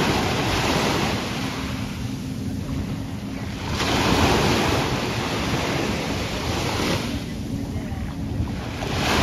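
Surf washing onto the beach, with wind buffeting the microphone; the rush of the waves swells about four seconds in and again near the end.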